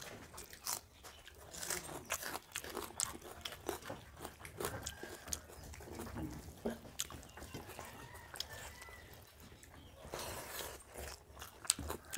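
Two people eating rice and shrimp curry with their hands: chewing, with many short, irregular clicks and smacks as fingers mix rice on steel plates.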